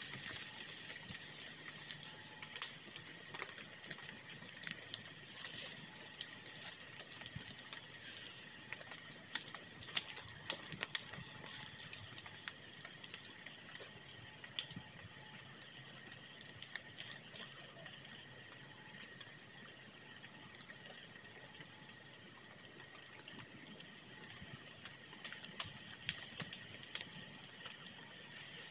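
Sharp snaps and knocks from someone working through brush and sticks, over a steady high-pitched hiss. The snaps come singly at first, then in a cluster about ten seconds in, then in a quick run of about eight near the end, two or three a second.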